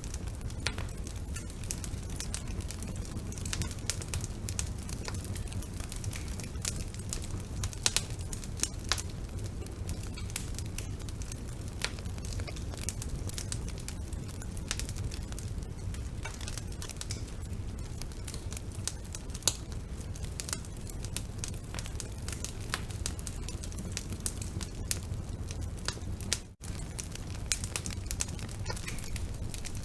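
Wood fire burning in a fireplace: irregular crackles and sharp pops of varying loudness over a steady low rumble of the flames, with a split-second break in the sound near the end.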